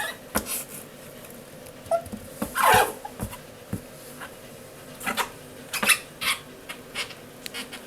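Male Japanese stream toad calling: a series of short, irregularly spaced calls, the longest and loudest about two and a half seconds in. The calls have a whimpering, puppy-like quality.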